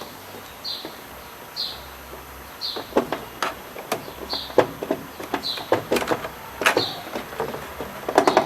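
Clicks and knocks of hoses and clamps being worked off a washing machine's water inlet valve by hand, sharper and more frequent from about three seconds in. A short high chirp repeats about once a second throughout.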